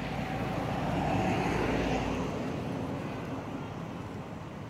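An engine passing by: a steady hum that grows to its loudest about a second and a half in, then fades away.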